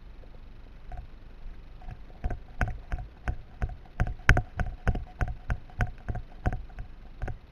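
Airsoft gun firing on semi-auto: a steady string of sharp shots, about three a second, beginning about a second in.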